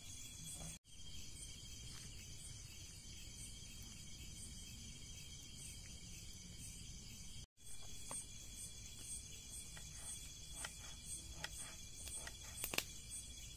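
Crickets chirring steadily in the night. In the last few seconds, a few light knife taps on a wooden cutting board as vegetables are chopped.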